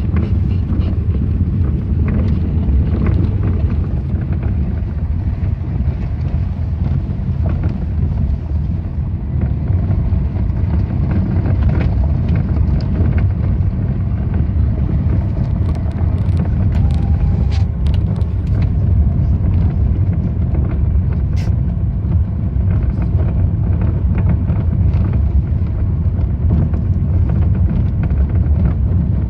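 Lada Vesta SW Cross driving over an uneven road: a steady low rumble of road and tyre noise, with irregular short knocks from the suspension. The owner puts the knocking down to the shock absorbers.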